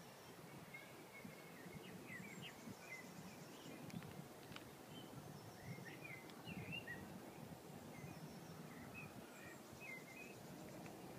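Quiet park ambience: a low background hum with faint bird chirps in short phrases, about two seconds in, around six seconds, and again near nine to ten seconds.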